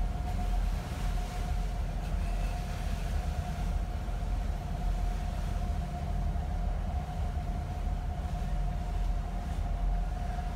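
Rathlin Express fast ferry under way: its engines run with a steady low drone and a steady mid-pitched whine, over an even hiss of wind and rushing water.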